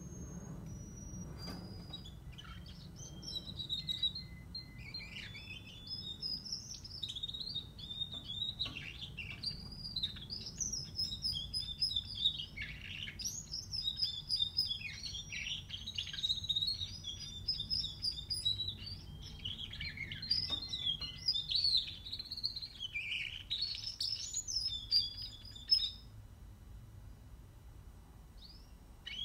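A 44-day-old Russian canary singing a rambling, near-continuous warble of rapid twitters and gliding notes, the early practice song (subsong) of a young male. A few scattered notes come first, then about twenty seconds of song that stops a few seconds before the end.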